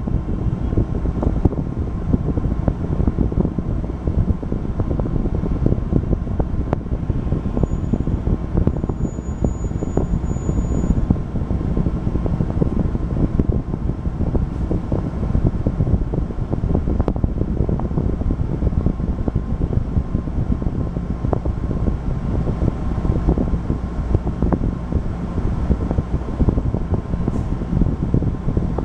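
Cabin ride noise inside a RAC EV Race 150 battery-electric city bus under way: a steady low rumble from tyres and drivetrain, with frequent small rattles and knocks and a faint steady tone underneath.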